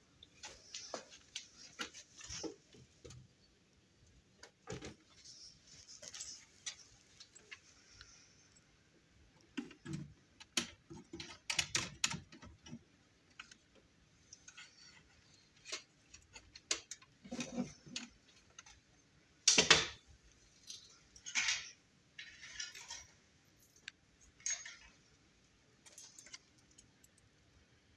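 Irregular small clicks, clinks and rustles of hands handling wires and small metal connectors at a plastic control box, with one louder knock about two-thirds of the way through.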